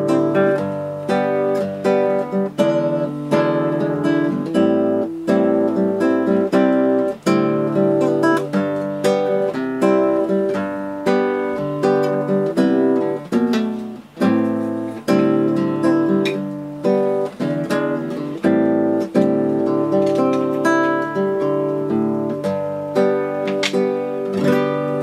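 Acoustic guitar music: plucked and strummed chords with a steady pulse.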